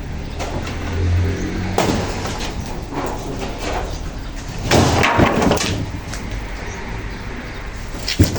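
Scraping and knocking of building materials being handled during roofing work: several short scrapes and knocks, a busier cluster about five seconds in and a sharp knock near the end.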